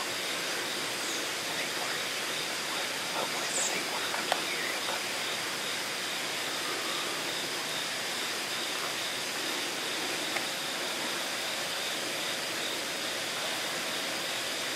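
Steady, even hiss of woodland background noise with a faint thin high tone held over it, and a few faint ticks about three to four seconds in.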